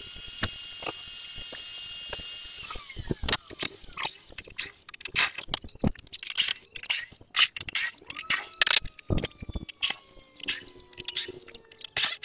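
A power tool's motor runs with a steady whine, then spins down and stops about three seconds in. A rapid, irregular series of sharp knocks and clicks follows, the clatter of tools and wood being handled.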